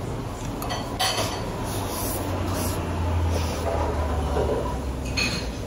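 Tableware clinking and knocking a few times as a bowl is handled at the table, over a low steady hum.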